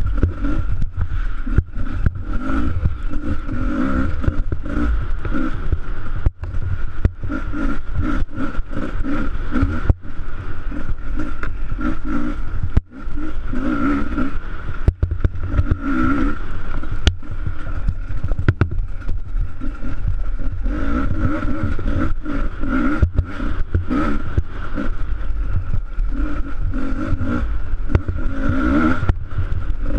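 Enduro motorcycle engine revving up and dropping back again and again as it is ridden hard over a rough, snowy trail. Frequent knocks and clatter come from the bike jolting over bumps.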